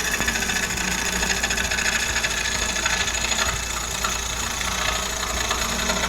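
Gouge cutting a spinning lignum vitae bowl blank on a wood lathe: a steady, continuous scraping hiss of the tool shearing the wood over a low, even hum.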